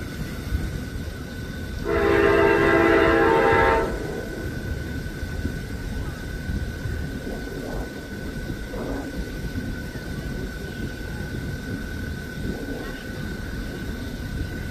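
Diesel locomotive air horn sounding one long blast of about two seconds, starting about two seconds in, over a low steady rumble.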